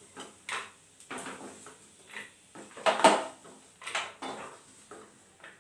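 A metal utensil scraping and knocking against a kadai and a plate while fried cashews and almonds are scooped out: a string of irregular clinks and scrapes, loudest about three seconds in.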